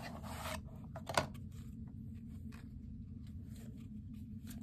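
A new deck of tarot cards taken out of its small cardboard tuck box and handled: a paper rustle at the start, a sharp click about a second in, then light, irregular clicks and taps of the cards, over a low steady hum.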